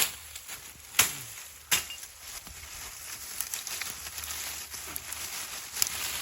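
Three sharp chopping strikes about a second apart, then a run of faint crackles and rustles, typical of hand farm work with a cutlass or hoe.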